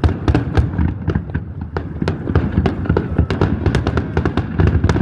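Fireworks finale: a dense, rapid barrage of crackling reports over continuous deep booms from shells bursting overhead, many per second without a break.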